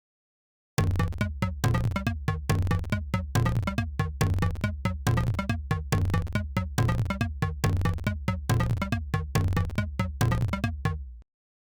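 Electronic synthesizer music with a fast, steady beat of sharp percussive hits over a sustained bass, starting suddenly about a second in and cutting off abruptly near the end.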